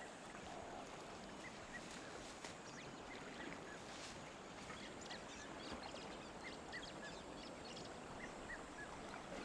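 Riverside wildlife ambience: a steady hiss with short bird calls repeated through it, often in pairs.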